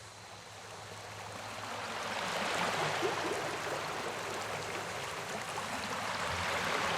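Rushing water of a cascading waterfall, fading in over the first couple of seconds and then a steady, even wash.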